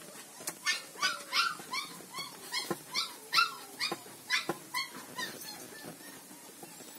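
Black Indonesian village-dog (anjing kampung) puppies, about four months old, giving a quick run of short, high-pitched whining yelps, roughly two a second, that die away after about five seconds. A couple of sharp knocks sound among the calls.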